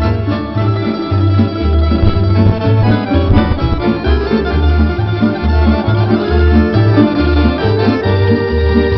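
Tamburica band playing an instrumental passage with no singing: held, organ-like string chords over a steady, rhythmic bass line.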